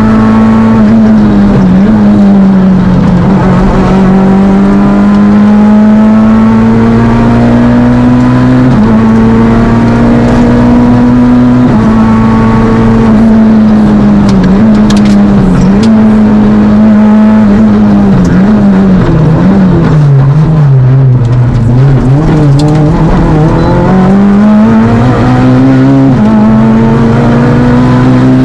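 Fiat Panda Kit Car rally car engine, heard from inside the car, running hard through a stage. Revs climb and step down at gear changes, drop low about 20 seconds in, then build again.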